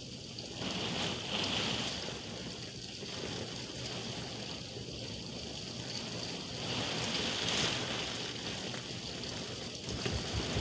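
Heavy rain pouring in a thunderstorm, a steady wash that swells louder twice, about a second in and again about seven seconds in.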